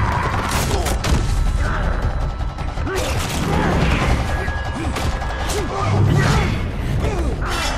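Film fight sound mix: a run of hits, crashes and whooshes, about half a dozen sharp impacts, over a dramatic music score, with a man's grunts and snarls.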